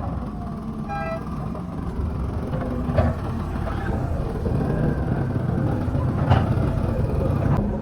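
A heavy engine running steadily, with a few sharp knocks and a brief beep about a second in.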